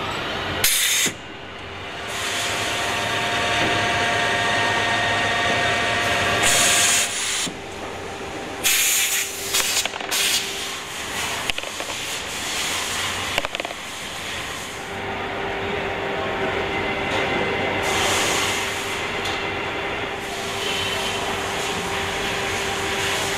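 Factory-floor machinery running steadily with a constant hum, broken several times by short, loud bursts of hissing.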